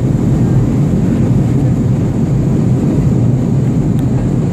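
Steady low rumble of an airplane in flight: engine and airflow noise, even and unchanging.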